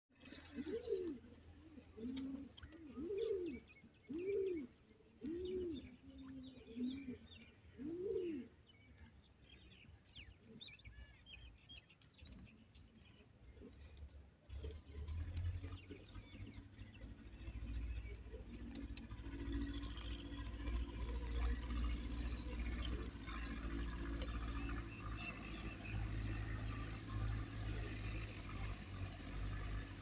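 Bird calls: a run of about seven low, arched calls roughly a second apart in the first eight seconds, with faint high chirps of small birds. From about halfway, a steady low rumble takes over.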